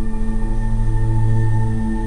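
Ambient background music: a deep sustained drone with long held tones above it.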